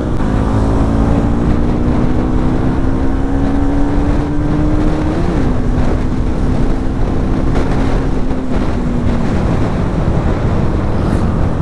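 Bajaj Pulsar NS200's single-cylinder engine running under way, with heavy wind rush on the microphone. The engine pitch climbs slowly, rises and drops sharply about five seconds in, holds steady, then falls away about nine seconds in.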